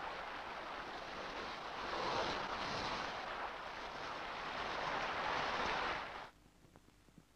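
Steady rushing hiss of water spraying from a street-washing hose onto pavement. It swells about two seconds in and cuts off abruptly about six seconds in.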